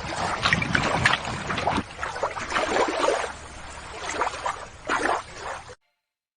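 Water splashing and sloshing in uneven small splashes as a toy crab is put back into the water. It cuts off abruptly about six seconds in.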